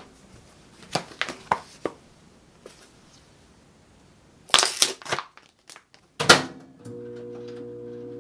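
Plastic food pouch of grilled mackerel crinkling and tearing open in a couple of loud rustles, after a few light clicks and knocks. A steady hum starts near the end.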